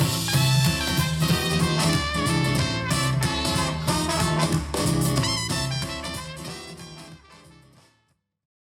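A swing-style music track with brass, played back through a pair of compact powered desktop speakers. It fades out from about six seconds in, into a moment of silence near the end.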